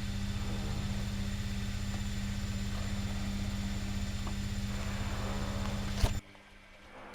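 An electric motor humming steadily with a fast low pulsing, then cutting off abruptly with a click about six seconds in.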